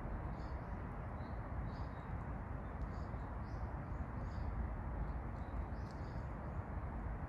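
Short high chirps from a small animal, coming irregularly about twice a second over a steady low outdoor rumble.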